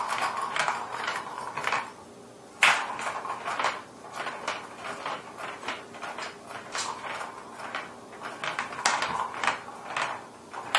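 Flashing plastic ball rolling and rattling around the channel of a plastic cat track toy as kittens bat at it, with many irregular sharp clacks; a loud clack comes about two and a half seconds in.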